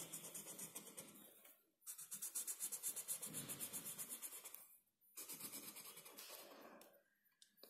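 Felt-tip marker scratching on paper in quick back-and-forth colouring strokes, several a second, in three bouts with short pauses between them.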